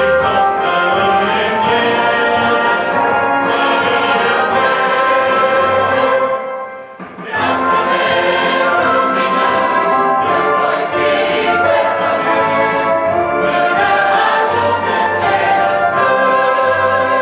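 Mixed choir of women's and men's voices singing in parts. They break off for a short pause about seven seconds in, then come back in together.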